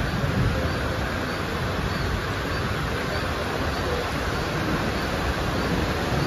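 Steady hiss of heavy rain at a railway platform, with the low rumble of a Mumbai local EMU train pulling away.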